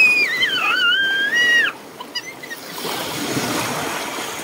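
A high, wavering whistle-like call sliding down in pitch for about the first second and a half, then small sea waves washing in and breaking on a pebble shore.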